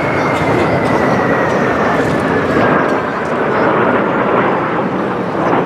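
Jet noise from a formation of four Kawasaki T-4 jet trainers, each powered by twin turbofans, flying past: a steady rushing sound with a high whine that falls slowly in pitch over the first three seconds.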